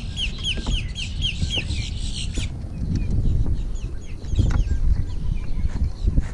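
A bird calling in a rapid series of short, falling notes, about three a second, that stops abruptly about two and a half seconds in, with fainter calls after. Low wind rumble on the microphone throughout.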